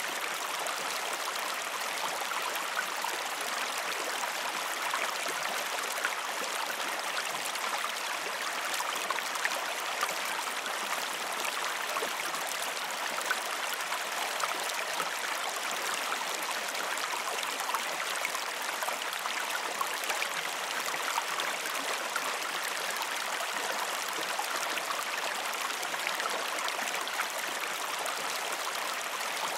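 Creek water flowing steadily over stones: an even, unbroken rush and splash of running water, light and without a deep rumble.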